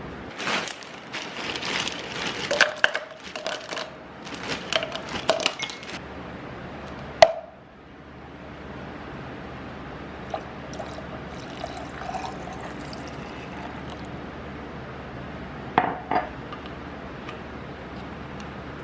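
Kitchen handling sounds: a run of pouring, rustling and clinking for about six seconds, a single sharp knock about seven seconds in, then quieter, with two short clinks near the end.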